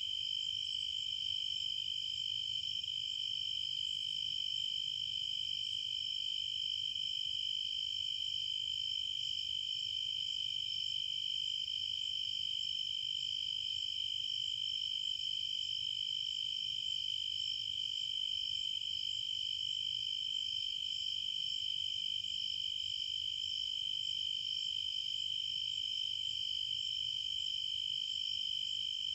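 Steady, unbroken chorus of insects such as crickets, a high continuous trill with no breaks, over a faint low hum.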